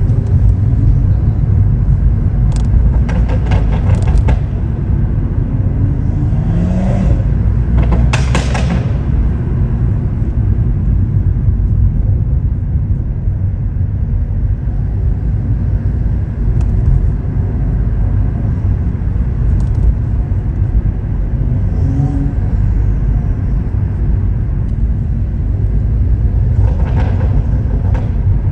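Stage 2 BMW M140i's turbocharged 3.0-litre B58 straight-six with a custom exhaust, driving with a steady low rumble. There are short sharp bursts of noise about three seconds in and again around eight seconds in, and a brief rise in engine pitch between them.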